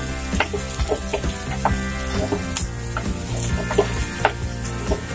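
Wooden spatula stirring ash gourd pieces in a steel pan of hot sesame oil, the food sizzling with a steady hiss while the spatula clicks and scrapes irregularly against the pan.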